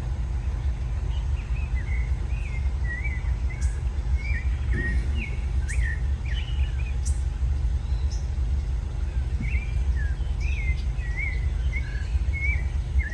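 Birds calling with many short, warbling chirps, over a steady low rumble.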